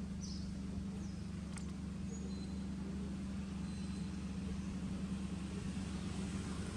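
A steady low engine hum, like a motor vehicle idling, with a few faint, short high chirps in the first few seconds.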